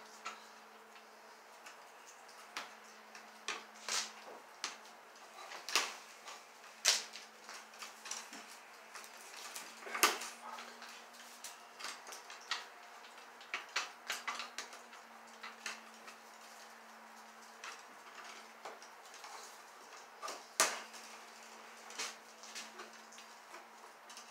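Irregular sharp clicks and snaps of pliers working electrical wire at an overhead junction box, a few of them much louder than the rest. A faint steady low hum runs underneath.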